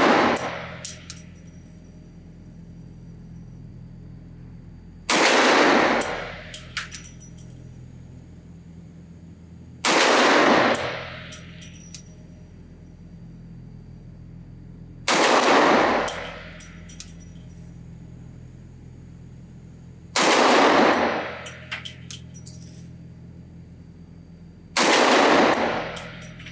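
Coonan Arms Model A pistol firing .357 Magnum rounds one at a time, about five seconds apart: five sharp shots, each with a long echoing decay in an indoor range. A few light metallic clinks follow each shot.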